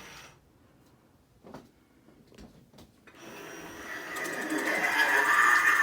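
Lord Raven animatronic's motor whirring as the prop moves, starting about three seconds in and getting louder, after a few faint clicks.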